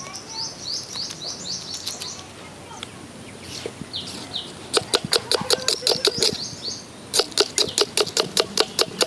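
A knife chopping a red onion on a wooden chopping block: rapid, even strokes, about five a second, starting about halfway through with a short break before continuing. A bird sings a string of short, falling, high chirps at the start and again mid-way.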